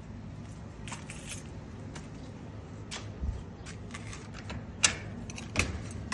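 Keys jangling and clinking in short, separate clicks over a low steady hum, the loudest clink a little under five seconds in.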